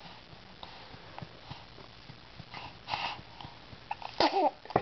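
Newborn baby hiccuping after a feeding: a few short, soft hiccups, with a brief vocal sound near the end.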